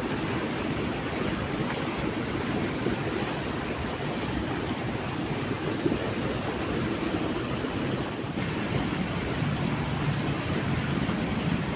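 Steady rushing of water flowing in a drainage ditch, an even noise with no distinct events.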